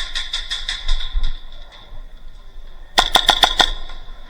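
Airsoft guns firing: strings of sharp snapping shots, with a tight burst of about eight rapid shots about three seconds in, the loudest part.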